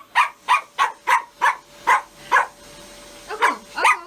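Toy poodle barking in a quick run of sharp, loud barks, about three a second, pausing about two and a half seconds in, then barking a few more times near the end.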